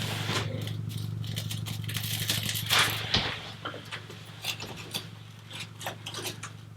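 Scattered clicks, knocks and rattles of things being handled, over a steady low hum.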